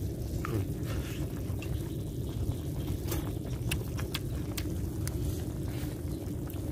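A person eating stewed snake meat off the bone: small clicks and smacks of biting and chewing over a steady low rumble.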